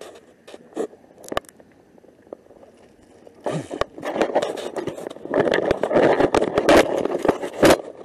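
Handling noise on a small camera's microphone: a few scattered clicks, then from about three and a half seconds in a louder stretch of rubbing, scraping and crackling with many sharp knocks as the camera is moved and its lens covered.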